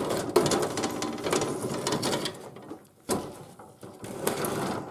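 Metal lock on an old gas street-lamp top being worked. It rattles with rapid fine clicks for about two and a half seconds, gives a sharp click a little after three seconds, then rattles briefly again near the end.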